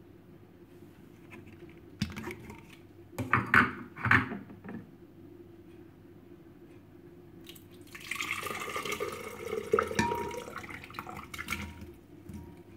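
A few clunks as the glass blender jar is handled, then boiled potato, carrot, broccoli and minced meat with their cooking water tipped from a bowl into the jar, splashing and sliding in for about four seconds near the end.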